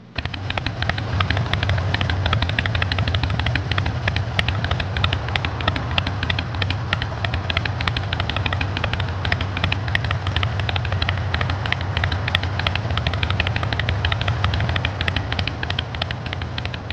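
Harley-Davidson Sportster XL883L's air-cooled V-twin engine, bored up to 1200 cc, running loudly and steadily with a rapid exhaust beat. It cuts in suddenly.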